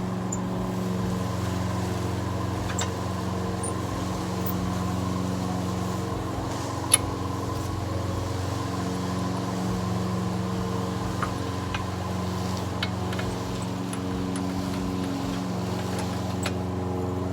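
Lawn mower engine running steadily, with a few sharp clicks on top, the loudest about seven seconds in.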